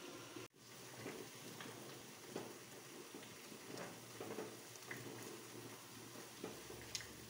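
Pot of milk tea with tea leaves simmering, a faint bubbling hiss. In the second half a plastic spoon stirs it as it foams up, with light clicks and scrapes against the aluminium pot.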